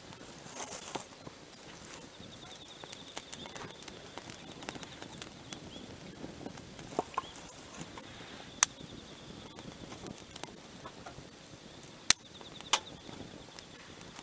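Wood fire of twigs and dry leaves crackling in a small steel fire grate, with a steady hiss and irregular sharp pops, the loudest a few coming in the second half.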